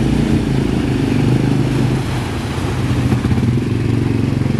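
ATV quad bike engine running at low revs while the quad is driven through a shallow stream. The engine note is steady and eases off slightly about two seconds in.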